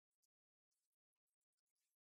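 Near silence: the sound drops out almost completely, leaving only brief, very faint scraps of hiss.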